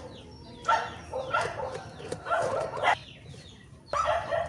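Backyard chickens calling: four or five short, separate calls spread over a few seconds.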